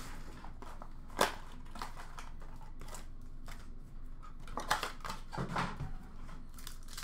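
Hockey card blaster box being opened by hand, with card packs pulled out and handled: a sharp snap of cardboard about a second in, then scattered clicks and crinkles of cardboard and foil wrappers.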